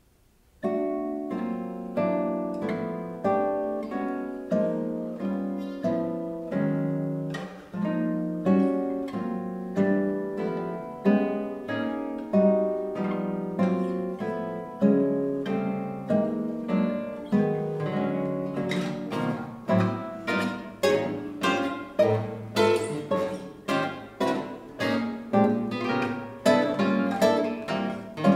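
Two classical nylon-string guitars playing a duet, starting about half a second in with plucked notes and chords. The notes come faster in the second half.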